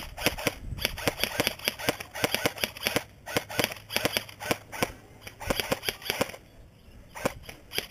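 Airsoft electric rifles firing quick strings of single shots, about five sharp cracks a second, with short breaks between strings and two last shots near the end.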